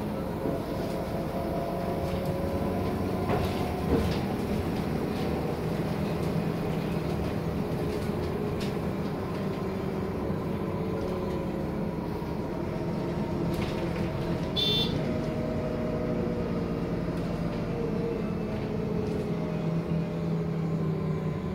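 City bus in motion, heard from inside the passenger cabin: a steady engine and drivetrain hum with road noise and light rattles, its pitch rising and falling as the bus speeds up and slows. A short high-pitched tone sounds about two-thirds of the way through.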